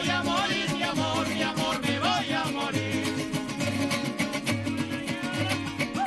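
Golpe tocuyano, the Lara folk rhythm, played by a string ensemble: strummed cuatros and guitars with violins carrying the melody, over a bass note pulsing steadily about every 0.8 s.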